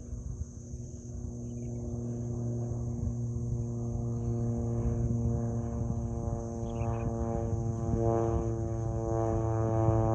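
Crop-spraying aircraft's propeller engine, a steady hum that grows louder as the aircraft approaches.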